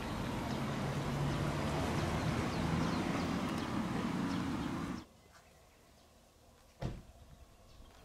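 A steady low droning hum over a rushing noise, which cuts off abruptly about five seconds in; after that only quiet outdoor background with a single short thump near the end.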